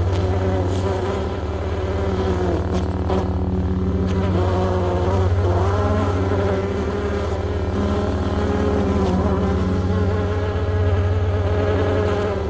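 Designed sound effect of a giant mechanical insect buzzing: a swarm of bees pitched down, layered with a mechanical drone and a deep lightsaber-style hum underneath. A steady low hum runs throughout, while the buzzing pitches above it waver up and down.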